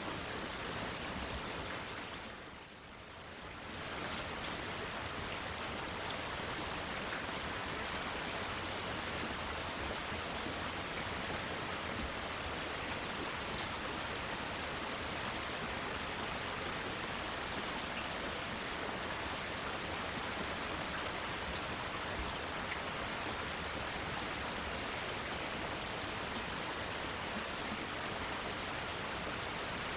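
Steady rain falling, an even hiss of drops, briefly dipping in level and coming back up about two to three seconds in.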